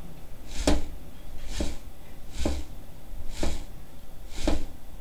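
Rotor of a washing-machine motor converted into a magnet generator, spun round by hand: a short rushing stroke with a low thump about once a second, each hand push on the rotor.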